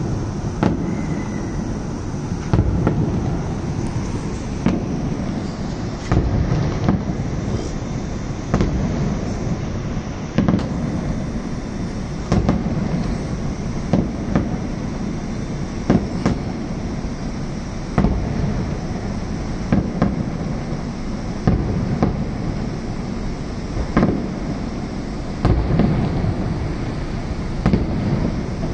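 Aerial fireworks shells bursting in a steady barrage: a sharp bang every second or two over a continuous low rumble.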